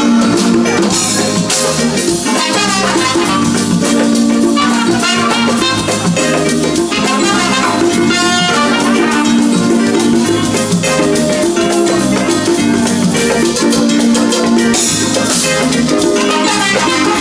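Live highlife band playing a song, with a steady drum-kit beat under dense, loud ensemble instruments.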